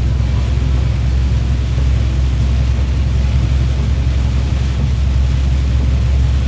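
Heavy rain falling: a steady hiss over a deep, constant rumble.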